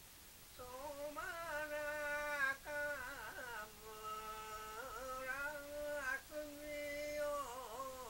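An elderly man singing a Japanese min'yo folk song from Soma, unaccompanied, in long held notes joined by wavering, ornamented turns; the singing starts about half a second in.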